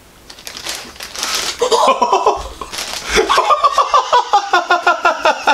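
A man and a woman bursting into loud laughter about a second and a half in, a fast run of repeated ha-ha pulses that grows louder about three seconds in.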